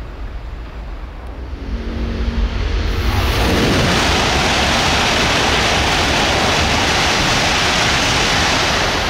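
A shinkansen approaching as a low rumble, then from about three seconds in, an E5+E6 coupled Hayabusa shinkansen passing close at about 315 km/h: a loud, steady rush of noise.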